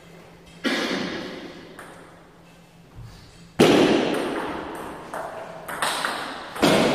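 Table tennis ball struck by rubber paddles and bouncing on the table during a rally, a string of sharp irregular clicks, the loudest about halfway through, each ringing out in a large echoing hall.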